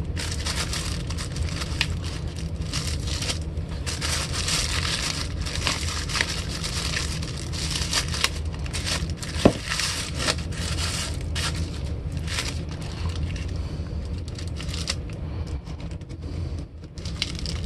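Plastic masking sheet crinkling and painter's tape being pulled off as a guitar body is unmasked after spray painting, with a steady low hum underneath. There is one sharp click about nine and a half seconds in.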